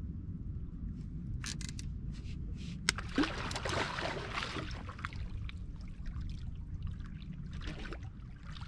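Water trickling and splashing against a small boat over a steady low rumble, with a few light knocks; the splashing is busiest from about three seconds in, for a couple of seconds.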